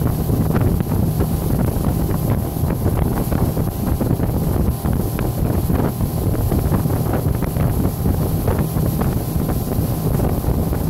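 Wind buffeting the microphone at speed over the steady running of a towing motorboat's engine and the rush of its wake.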